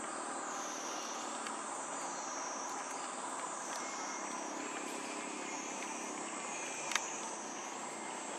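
Cicada chorus shrilling in a high band that slides up and down in pitch about every second and a quarter, over a steady background hiss, with one sharp click about seven seconds in.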